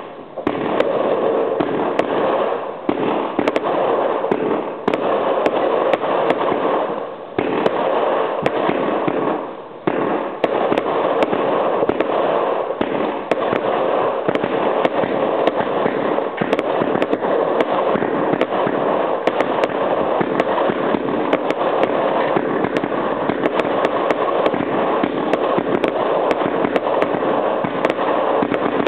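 An 80-shot firework cake firing its shots in rapid succession: a dense, continuous barrage of bangs and crackling, with a few brief lulls in the first ten seconds.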